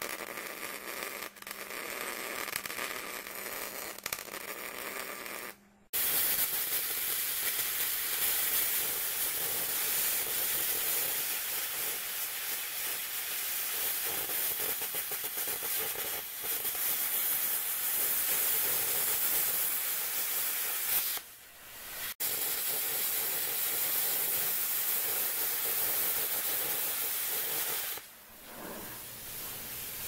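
A MIG welder's arc crackling for the first few seconds, then a plasma cutter hissing steadily as its torch cuts through a steel plate, stopping briefly about two-thirds through and dropping off near the end.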